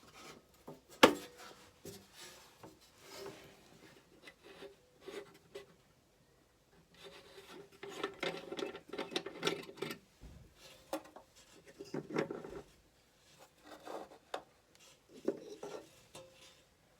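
Irregular handling noise: rubbing and scraping with scattered clicks and knocks, one sharp knock about a second in.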